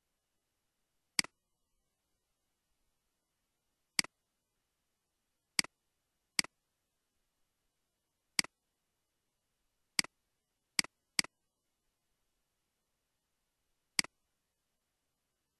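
Nine sharp single computer mouse clicks at irregular intervals, some in quick pairs, with nothing heard between them.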